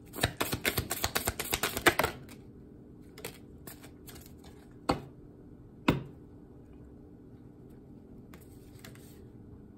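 A deck of oracle cards being shuffled in the hands: rapid clicking for about two seconds. Then a few separate taps and slaps as cards are drawn and laid down on the table, the loudest two about five and six seconds in.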